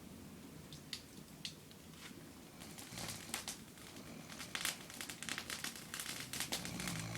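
Crinkling and rustling crackle: a few separate clicks at first, then dense, irregular crackling from about three seconds in.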